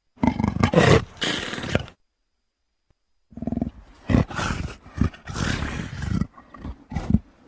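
Big-cat vocalizations from a sound-effects library: one call of under two seconds, then after a short silence a run of shorter, uneven calls broken by a few sharp snaps.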